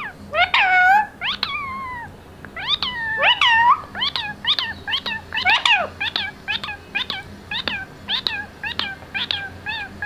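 Indian ringneck parakeet (rose-ringed parakeet) calling: a few drawn-out falling squawks in the first four seconds, then a quick run of short, sharp calls at about three a second.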